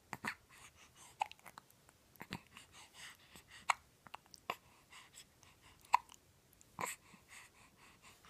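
A baby hiccupping: a string of short, sharp hiccups about a second apart, the strongest ones near the end.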